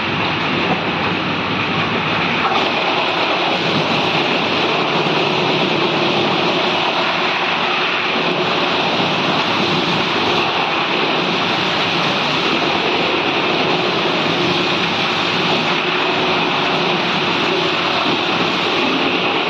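Comprehensive wood chipper running, a loud, steady, even machine noise.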